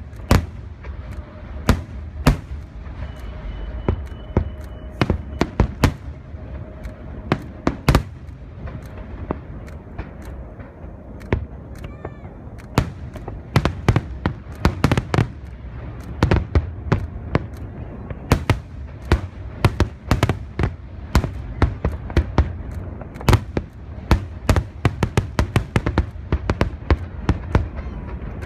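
Fireworks show bursting: a long, irregular run of sharp bangs, several a second and coming thicker in the second half, over a steady low rumble.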